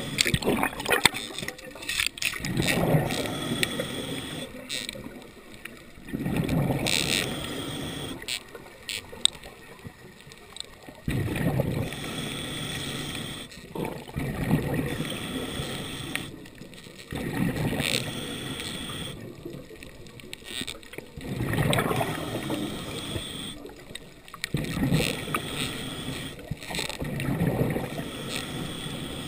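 A diver breathing underwater through a scuba regulator: a rush of exhaled bubbles every few seconds, with a fainter hiss of inhalation between.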